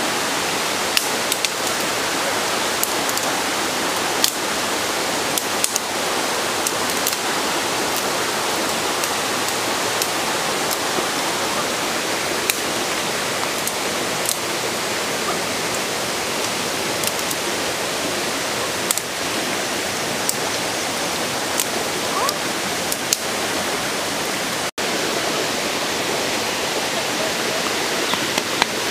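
Steady rushing of a waterfall, with scattered sharp clicks and snaps of dry sticks being gathered and handled. The sound cuts out for an instant once, near the end.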